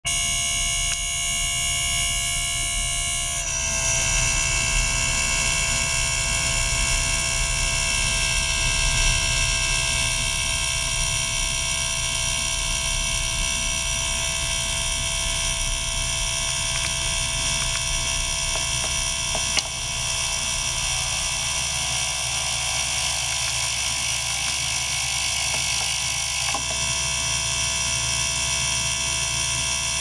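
Ultrasonic cleaner running with water circulated through its tank by a small pump: a steady buzzing whine of many high tones over a low hum. The tone pattern shifts about three and a half seconds in and again near the end.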